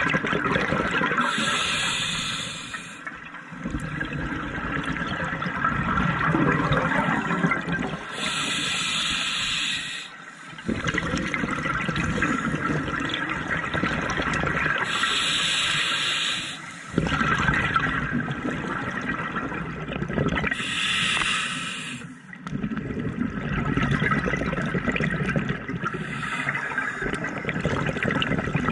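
Scuba diver breathing underwater through a regulator: four slow breaths about six to seven seconds apart, each a short hiss as the demand valve opens on the inhale, followed by a longer low burble of exhaled bubbles.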